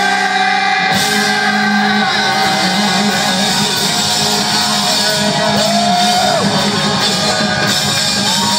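Live hard rock band playing loud, with electric guitar and long held notes that slide up and down in pitch, heard from within the audience.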